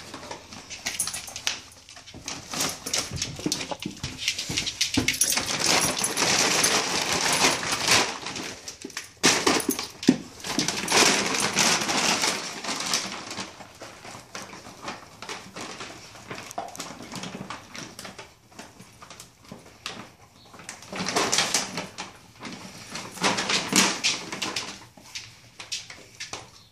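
Large plastic dog food bag crinkling and rustling as a dog pushes its head inside and noses around in it. The rustling comes in several bursts, quieter for a few seconds around the middle.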